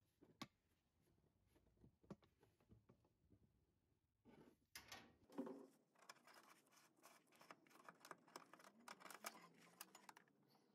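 Near silence, broken by faint scratches and small clicks of a gloved hand working the throttle cable and its rubber grommet free through the engine tin. The clicks grow more frequent in the second half.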